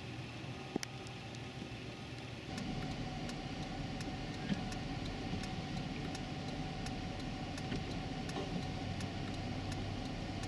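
Road traffic running steadily, louder from about two and a half seconds in, with scattered sharp ticks of freezing rain striking ice-glazed surfaces.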